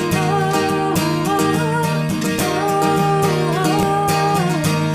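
Worship band playing an instrumental break between verses: steady acoustic guitar strumming, with a melody line moving over it.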